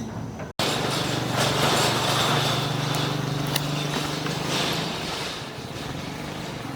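A small engine running steadily, easing off about five seconds in, after a brief cut in the sound near the start.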